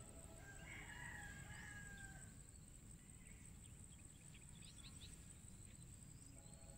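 A rooster crowing once, faint: one long call of about two seconds near the start, followed a few seconds later by a few short bird chirps.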